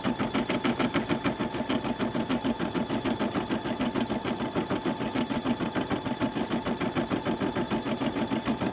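Brother single-needle embroidery machine stitching out a design, its needle running at a rapid, even rhythm.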